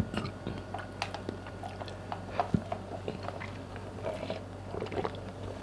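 Close-up mouth sounds of someone sipping iced milk coffee and chewing: scattered small wet clicks and smacks.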